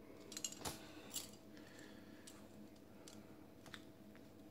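Near-quiet room with a faint steady hum, broken by a few light clicks and taps, several in the first second or so and a few more spaced out after. These are the small handling sounds of a syringe being used for a subcutaneous injection.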